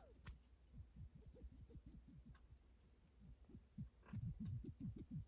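Near silence with faint, irregular soft ticks and knocks, thicker in the second half, like small parts being handled.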